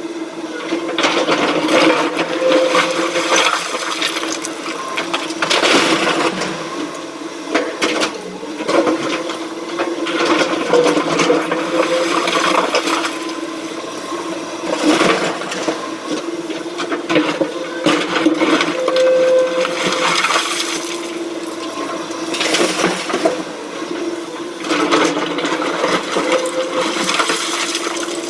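SANY SY225 excavator running steadily under working load. Repeated rushes of noise every few seconds come as its bucket digs and dumps material.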